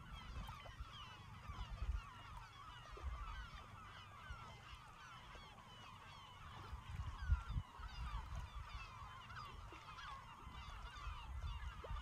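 A flock of birds calling without pause, many short overlapping honking and chattering calls, with irregular low rumbling thumps underneath.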